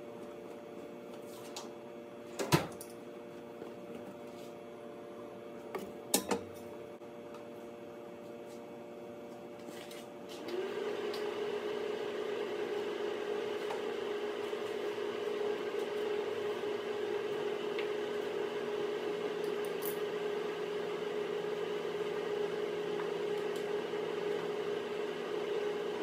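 A small electric motor starts about ten seconds in, its pitch rising briefly and then holding a steady hum. Before that, a faint hum with two sharp knocks.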